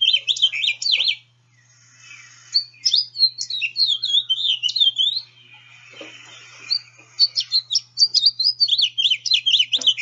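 Recorded house finch song: rich, burry phrases of fast notes slurred up and down. Three phrases with short pauses between them, the last running on past the end.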